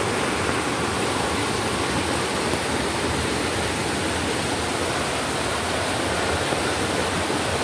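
Rain-swollen river in flood rushing over rocky rapids: a steady, unbroken noise of churning whitewater.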